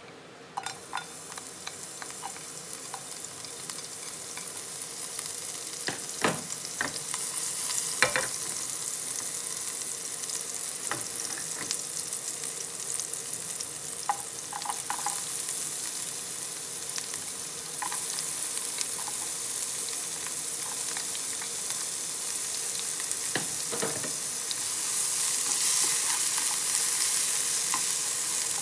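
Chopped garlic and then diced onion sizzling in hot oil in a nonstick frying pan, stirred and scraped with a plastic slotted spatula. The sizzle starts suddenly about half a second in and grows louder toward the end, with a few sharp knocks of the spatula against the pan.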